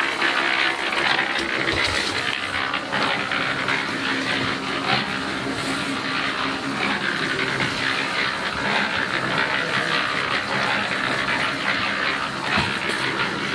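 Concrete mixer running, its drum churning a wet arbolit mix of sawdust, sand and cement. It makes a steady noise with a low hum beneath.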